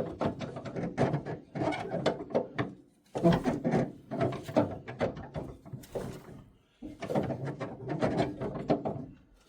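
Grey Ferguson tractor engine being turned over by hand with the starting handle, in three bouts of clanking and rattling of about three seconds each. The engine does not fire.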